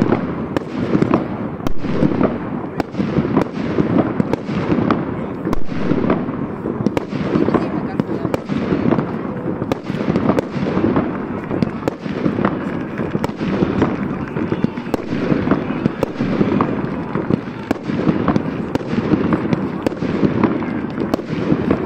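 Fireworks going off: aerial shells bursting overhead with repeated sharp bangs at irregular intervals, over a continuous din.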